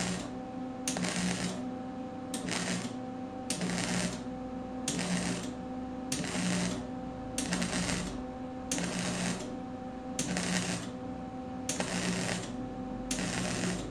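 Wire-feed welder laying a stitch weld on steel. About ten short crackling bursts of the arc come roughly one every second and a half, with a steady hum between them.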